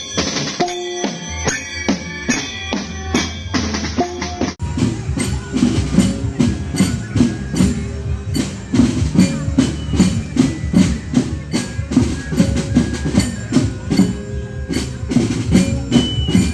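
Melodic music with drums. About four and a half seconds in it cuts sharply to heavier, steady drumming with evenly spaced strokes and a few held high notes over it.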